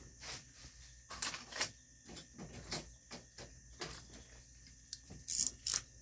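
A small carburetor and hand tools being handled on a towel-covered bench: irregular light clicks and taps of metal parts, with two sharper clicks close together near the end.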